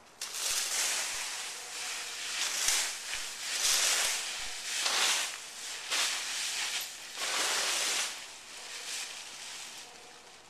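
Dry fallen leaves rustling and crunching as a Siberian husky puppy bounds and dives through a leaf pile, in repeated surges that ease off near the end.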